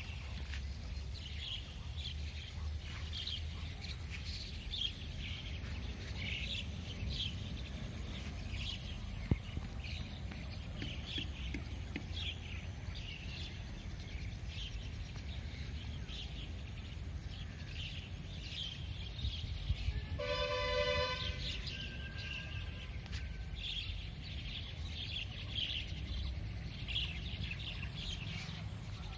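Birds chirping in short, repeated calls over a low steady rumble of open-air ambience. About two-thirds through there is a brief pitched tone.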